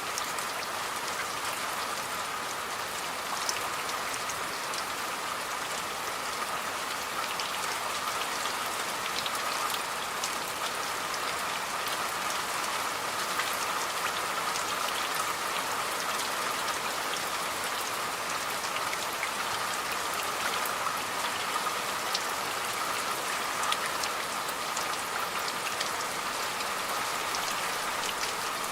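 Steady rain falling, with many separate drops striking a surface through an even hiss.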